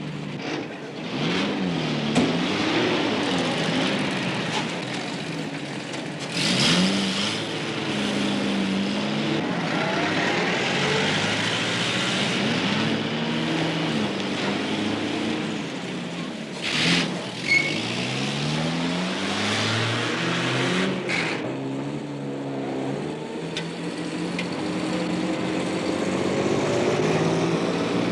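Heavy road traffic: engines of several vehicles rising and falling in pitch as they accelerate and pass, over a steady rushing noise. There are brief louder sudden noises about a quarter of the way in and twice a little past the middle.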